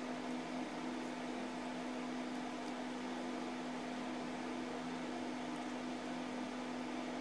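Steady machine hum with a constant low tone over an even hiss, unchanging throughout.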